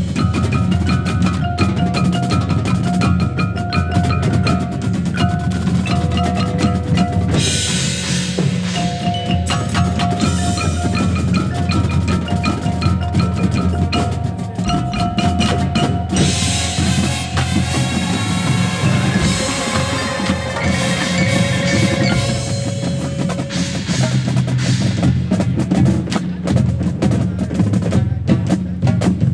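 High school marching band playing a percussion-heavy passage: drums and the front ensemble's mallet keyboards strike over held pitched notes.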